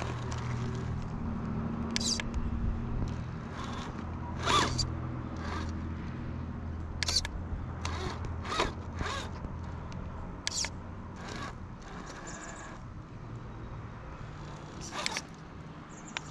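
Electric drivetrain of a 1/10-scale Axial Early Bronco RC crawler running slowly, a low steady hum that weakens over the last few seconds. Short scrapes and clicks come through it from time to time as the tires and chassis work over the terrain.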